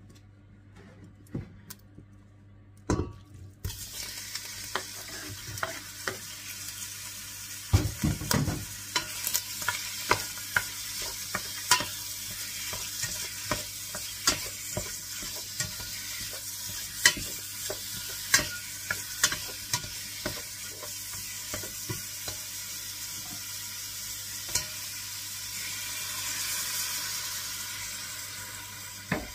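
Diced meat sizzling in a hot stainless steel pot. The sizzle starts a few seconds in, once the meat goes in, and metal spoon scrapes and clicks against the pot as it is stirred. Near the end the hiss swells as liquid is poured in.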